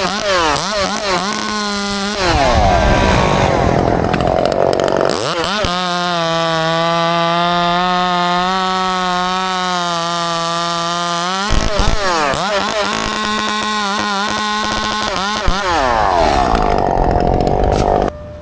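Two-stroke chainsaw cutting a maple. It revs in quick bursts, runs wide open at a high, steady pitch, and twice drops in pitch as it bogs into the wood. It stops just before the end.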